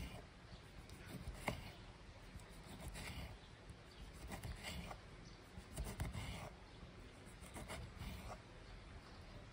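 Kitchen knife slicing through a tomato onto a wooden cutting board: a soft cut and tap on the board about every second and a half.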